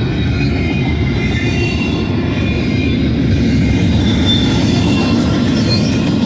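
Loaded double-stack intermodal well cars of a freight train rolling past close by: a steady, loud rumble of steel wheels on rail, with high, wavering wheel squeal coming and going over it.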